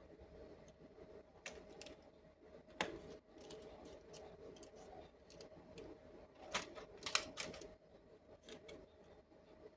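Irregular light clicks and taps of small hard parts being handled, the loudest about three seconds in and twice around seven seconds in, over a faint steady hum.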